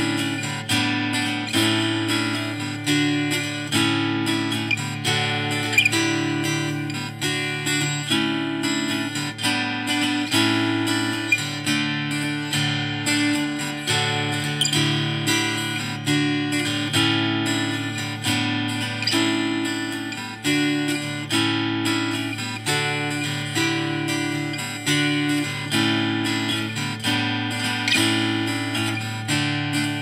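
Background music: acoustic guitar playing with a steady rhythm.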